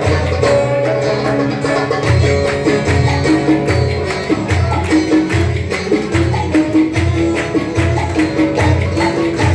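Live Turkish folk dance music: a bağlama and a keyboard playing a melody over a steady bass beat about twice a second, with sharp clicks of percussion in time.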